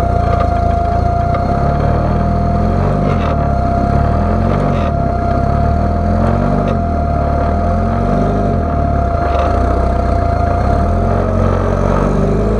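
A rock-crawler buggy's GM Ecotec four-cylinder engine revving up and dropping back over and over, about every second and a half, as it crawls. A steady high whine runs under it and stops near the end, with a few light knocks.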